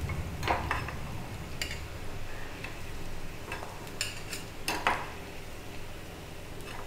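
Metal spatula clinking and scraping against an iron kadai and a plate as fried fish-roe fritters are lifted out of hot oil, about a dozen sharp clinks, loudest about half a second in and near five seconds. The frying oil sizzles softly underneath.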